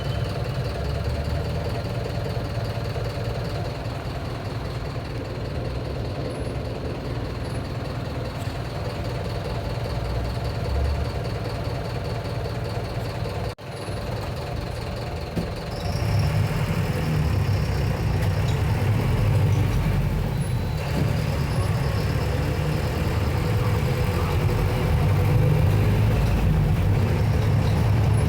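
Mercedes-Benz OF-1721 Bluetec 6 bus's four-cylinder diesel engine running steadily, with a brief dropout a little before halfway. Soon after, it grows clearly louder and fuller, as under load.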